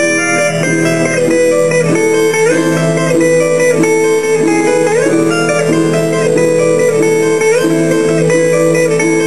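Guitar music: a plucked melody over a steady low note, with some notes sliding up in pitch.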